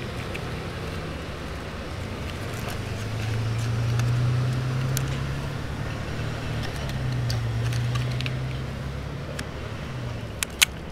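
Low drone of road traffic that swells and fades twice. Over it come small clicks and crinkles of hands loading candy tablets from a paper wrapper into a plastic PEZ dispenser, and two sharp plastic clicks near the end are the loudest sounds.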